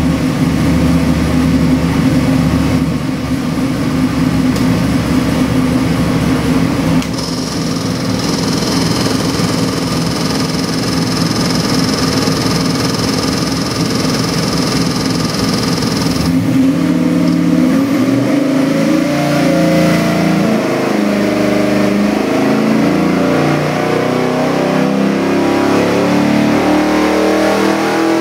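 441-cubic-inch LS7-type V8 crate engine running on an engine dyno. It idles steadily for about sixteen seconds, then makes a wide-open-throttle pull, the revs climbing steadily from about 1,000 rpm to near 5,000 rpm by the end.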